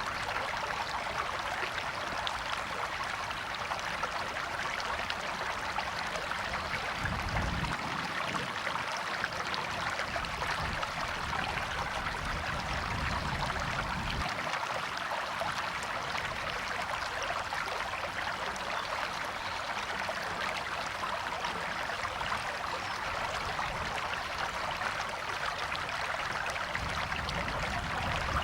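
River water flowing steadily over rocks, an even rushing babble with a low rumble that comes and goes underneath.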